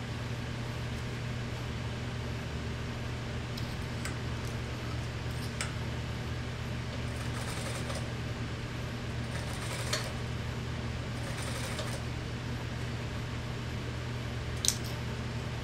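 Industrial sewing machine running with a steady motor hum while mink pelts and cotton tape are fed under the needle. A few light clicks and taps come through, the sharpest near the end.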